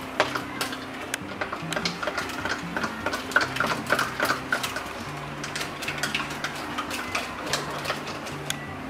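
Quick, irregular clinks and taps of glass and kitchen utensils, over background music with a low, stepping bass line.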